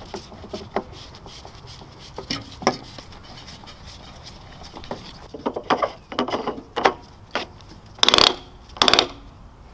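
Hand screwdriver driving the screws that hold the fuel filler neck's face at a car's fuel door, with scattered small ticks and scrapes of metal and plastic. Near the end come two louder short rattling clicks about a second apart as the fuel cap is gripped and turned.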